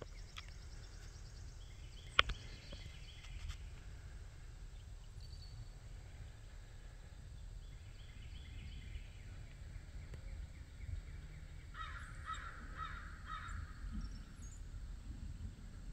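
Quiet outdoor ambience with a short run of harsh bird calls, several in quick succession, about twelve seconds in. A single sharp click about two seconds in is the loudest thing.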